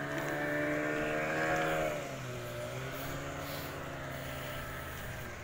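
A motorboat engine running out on the river, its pitch bending down about two seconds in and then carrying on lower and a little quieter.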